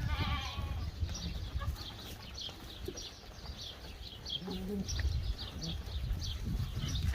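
Goat bleating: one wavering cry at the start, then a shorter, lower call about four and a half seconds in. Short high chirps, like small birds, run throughout.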